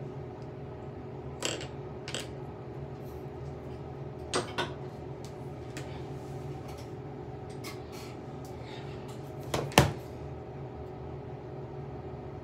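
Makeup cases and palettes being picked up and set down: a few scattered clicks and clacks, coming in pairs, the loudest about ten seconds in, over a steady low hum.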